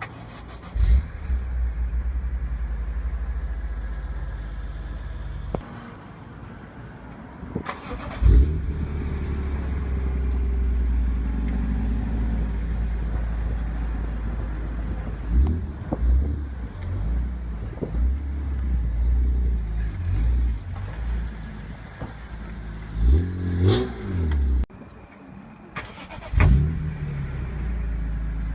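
BMW E46 M3's S54 straight-six starting up several times, heard through different exhaust systems: each start is a sharp bark that settles into a steady fast idle. In the middle stretch the engine is blipped through a run of short revs.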